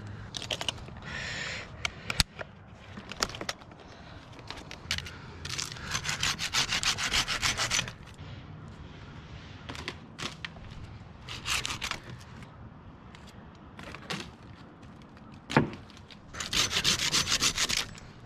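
A saw cutting through a tree limb in three bouts of quick rasping strokes, with scattered knocks between them and one sharp knock shortly before the last bout.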